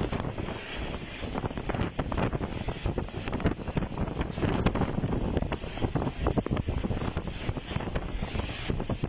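Strong storm wind gusting and buffeting the microphone, with heavy rain; the noise rises and falls in rough, uneven gusts.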